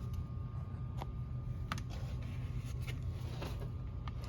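A few faint, light clicks and taps from handling a small plastic table fan, spread through a steady low background hum.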